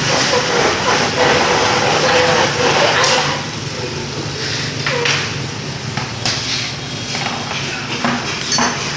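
Small plastic stools scraping across a tiled floor as a toddler pushes them, the scraping heaviest for the first three seconds, then several sharp knocks of plastic legs on tile.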